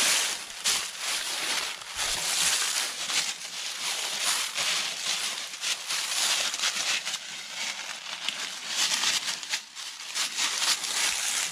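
Hooves and footsteps crunching and rustling through thick dry fallen leaves: a steady rustle with many small crackles, as goats walk and forage through the leaf litter.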